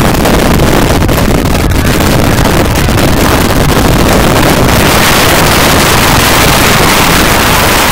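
Wind buffeting a camcorder microphone, a loud, steady rushing roar that drowns out everything else, growing a little hissier in the second half.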